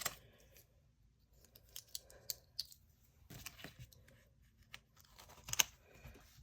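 Faint rustling of paper money and envelopes being handled, with scattered small clicks and one sharper click about five and a half seconds in.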